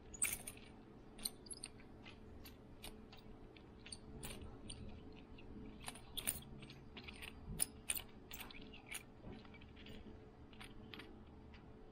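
Plastic packaging being handled: an irregular scatter of faint crinkles and sharp little clicks, a few louder ones about six to eight seconds in.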